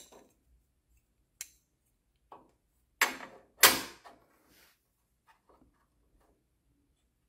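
Steel adapter plate and weld nut clinking and knocking against the underside of a steel frame rail as they are held up and fitted: a click, then two louder knocks about three and four seconds in, then a few faint ticks.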